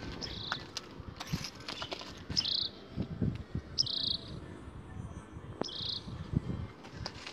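A bird calling: a short, buzzy, high chirp with a quick rising flick at its start, repeated four times about every one and a half to two seconds.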